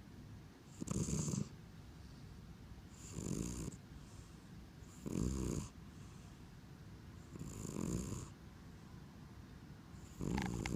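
Sleeping cat snoring: five slow, even snores, one about every two to two and a half seconds.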